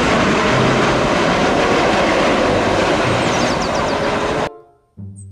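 Boeing 737-800 airliner's jet engines running loud and steady on the runway. The sound cuts off abruptly about four and a half seconds in.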